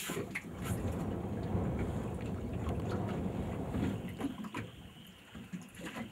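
Motorboat running at speed over choppy water, a rough rushing noise of hull, spray and wind. About four seconds in it drops away to quieter sound with a few scattered clicks and a faint steady high tone.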